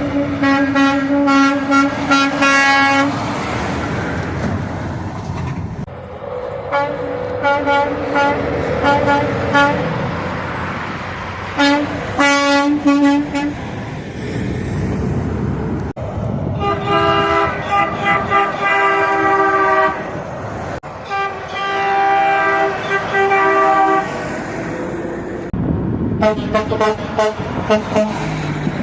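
Semi-truck air horns blowing in a string of separate honks from several different trucks, each at its own pitch. Some are long held blasts and others are quick repeated toots, with traffic noise between them.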